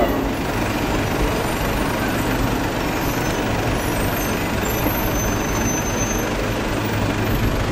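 Engines of a column of military wheeled armored vehicles and trucks driving past, a steady low rumble.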